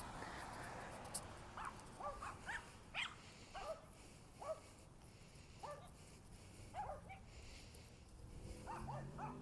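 A dog whining and yipping in short, high-pitched cries, one or two a second, fairly faint.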